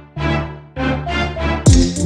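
Background music: a run of separate pitched notes, with a drum beat coming in near the end.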